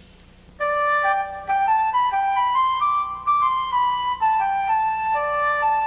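Background music: a solo flute playing a melody of single held notes, starting about half a second in after a brief quiet.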